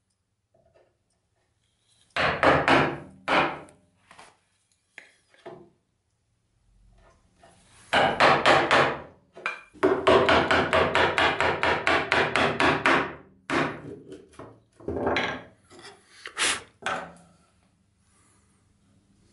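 Hand chisel paring and scraping wood out of a small notch in a board's edge: a few scraping strokes, then a fast, even run of short strokes, about six a second, for several seconds, then a few scattered strokes.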